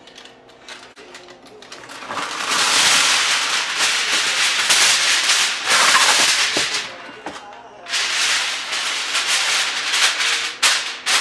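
A sheet of aluminium foil being pulled from the roll and crinkled: a loud crackling rustle for several seconds, a brief lull, then more crinkling with a few sharp crackles near the end.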